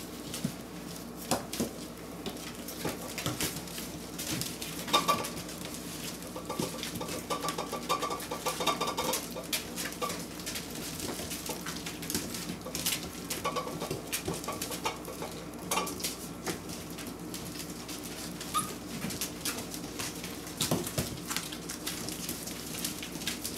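Four-week-old Doberman puppies' claws clicking and pattering on a vinyl tile floor as they scramble about, with a few short high squeaks and whimpers from the puppies.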